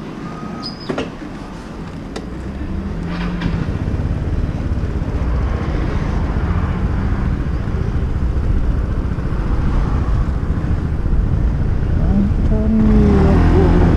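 Yamaha Cygnus 125 scooter's single-cylinder engine pulling away and riding slowly, getting louder from about two seconds in as it moves off, with the engine note rising and falling with the throttle near the end. Wind on the microphone grows with speed, and a few light clicks come in the first second.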